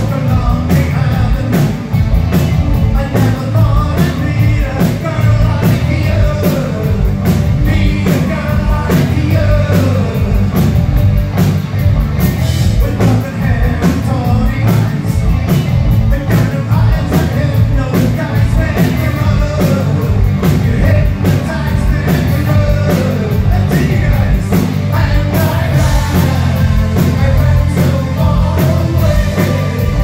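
A live rock band playing: drum kit, electric guitars and keyboards with a lead singer, amplified through the stage sound system.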